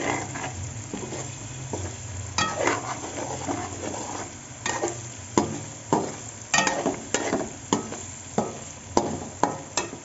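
Perforated metal skimmer spoon scraping and knocking against a metal pan as chicken meatballs are stirred in frying masala. There is a faint sizzle underneath, and a dozen or so irregular clicks with short metallic rings, coming faster in the second half.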